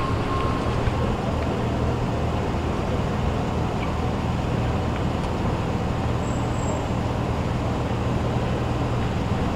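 Steady low rumble of an idling vehicle engine mixed with road traffic noise.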